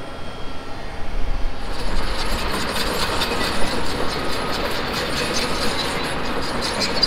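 Heavy machinery running with a dense, continuous metallic rattle and clatter over a low rumble. It gets louder about one and a half seconds in.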